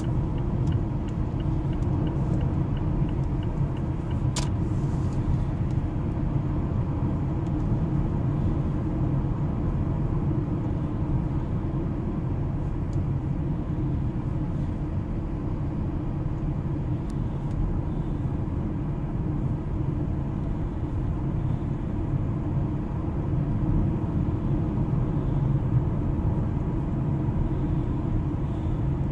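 Steady low road and engine noise heard inside a Mazda's cabin while cruising. There is a faint, even ticking for the first four seconds, and a single sharp click about four seconds in.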